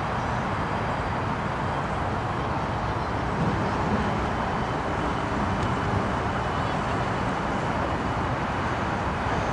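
Siemens Charger SC-44 diesel locomotive of a stopped passenger train running steadily at the platform, a constant mechanical rumble and hiss without sudden changes.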